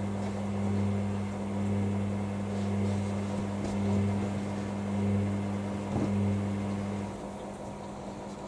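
Hoover WDYNS654D washer dryer running on its drying cycle: a steady machine hum that swells and eases about once a second. The deeper part of the hum cuts out about seven seconds in, leaving a quieter hum.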